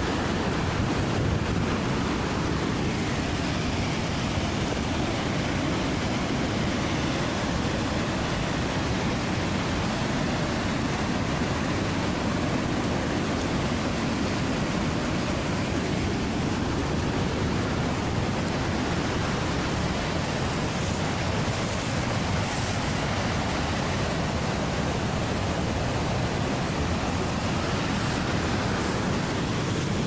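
Steady, even rush of falling and tumbling water from a waterfall and its stream below.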